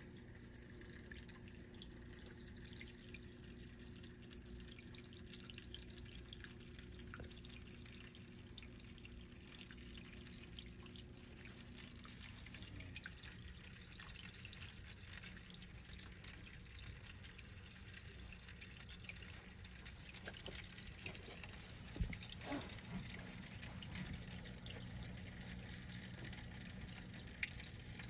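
Aquarium filter water trickling and dripping into the tank, over a steady low hum. A few sharper drips or ticks stand out, one about 8 seconds in and another about 22 seconds in.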